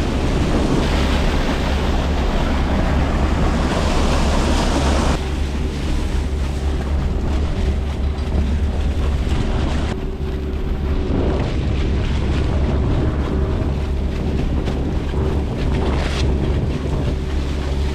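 A hydroseeder's engine running steadily with a low hum, while a loud rushing hiss over it drops away about five seconds in.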